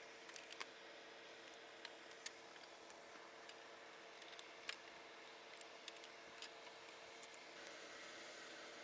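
Near silence with a steady faint hum, broken by scattered small clicks and taps as a gloved hand and pliers work the hose and line connectors in a car's engine bay.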